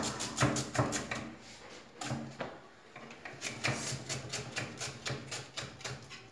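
Kitchen knife rapidly chopping onion on a wooden chopping board: quick, even taps of the blade against the board, about five a second, with a short lull between about two and three seconds in.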